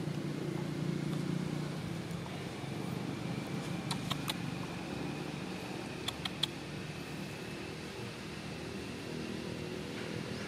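A steady low mechanical hum, like a motor running at a distance, with a few short sharp clicks about four and six seconds in.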